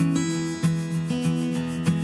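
Background music: acoustic guitar strummed in a steady rhythm, chords changing about every half second.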